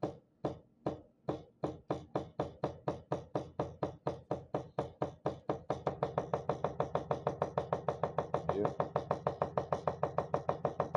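Seko electromagnetic diaphragm dosing pump clicking with each solenoid stroke. The stroke rate speeds up from about two to about six a second over the first several seconds as the dosage is turned up, then holds steady.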